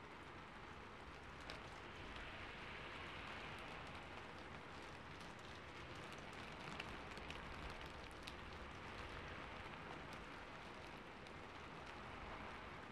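Faint, steady rain on a rooftop: an even hiss with scattered drops ticking through it.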